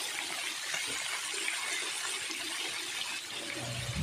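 Pork pieces shallow-frying in hot oil in a metal pan on high heat, a steady sizzle.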